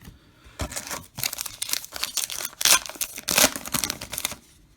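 A trading-card pack's wrapper crinkling and tearing as it is ripped open, a run of crackly rustles with two louder rips in the middle.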